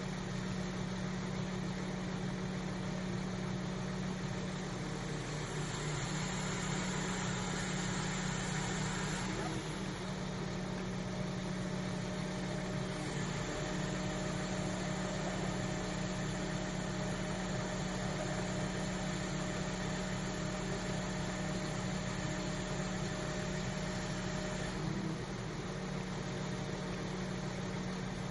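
Crane engine running steadily with a low, even hum, a faint steady whine joining it over the middle stretch.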